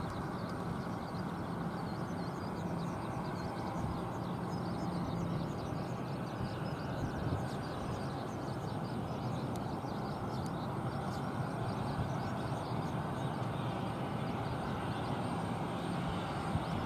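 ATR 42-600 turboprop airliner on final approach, its two Pratt & Whitney PW127 turboprop engines and propellers making a steady drone as it descends toward the runway. Birds chirp faintly behind it.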